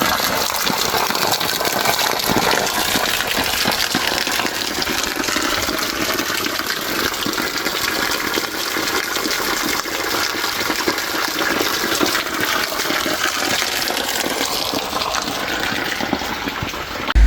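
Spring water running and splashing in a steady, continuous rush.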